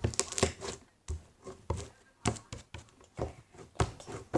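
Handfuls of thick slime being squished and stretched, popping air bubbles with a series of sharp, irregular pops and squelches, roughly one every half second to second.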